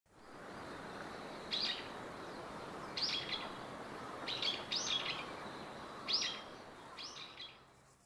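The steady rush of river water, with a small bird calling about six times in short chirps above it; all fades out near the end.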